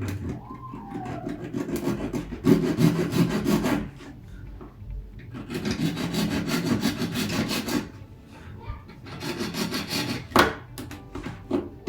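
A blade sawing through a copper-clad circuit board with rapid back-and-forth strokes, in several runs of a few seconds each with short pauses between them.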